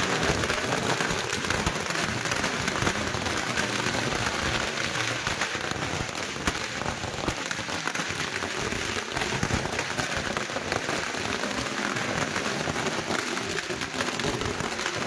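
Firecrackers going off in a dense, steady crackle of many small sharp pops.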